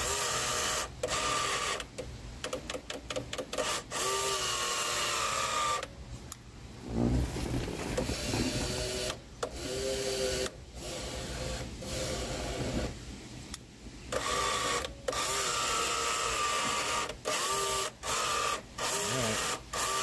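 Power mirror motor of a 1986 Dodge Daytona whining in repeated short runs of a second or two, stopping and starting as the repaired mirror switch is pressed in different directions: the switch now drives the mirror. A dull bump about seven seconds in.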